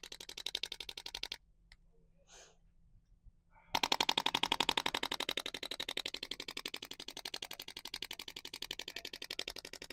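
ProAdjuster adjusting instrument tapping rapidly against the spine, an even train of clicks at about eight a second that delivers the vibrational adjustment. The tapping stops for about two seconds, then resumes, loudest at first and easing off a little.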